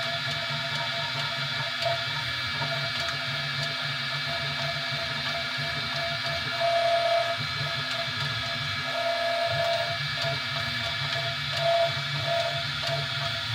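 3D printer running a print: a steady fan whine and hum, with the stepper motors' tone coming and going as the print head moves.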